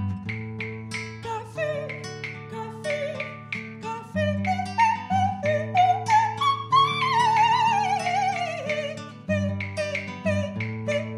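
Live acoustic music: plucked guitar strums over held bass notes, with a wavering melody line that climbs and then slides slowly down in the middle.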